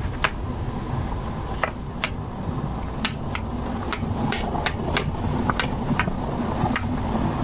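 Irregular sharp clicks and taps, a few each second, over a steady low rumble.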